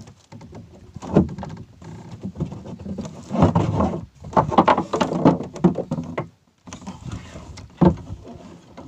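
Nylon fishing hand line being hauled in hand over hand, rubbing and rustling with handling knocks, in irregular bursts.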